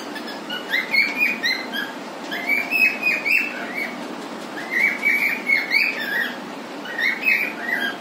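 Cockatiel singing: four phrases of quick whistled notes that rise and fall, with short pauses between them. A steady low hum runs underneath.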